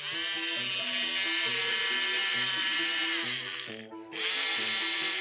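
Battery-powered toy dentist drill from a Play-Doh dentist set whirring against Play-Doh, in two runs: it spins up, winds down about four seconds in, then starts again at once. Background music plays underneath.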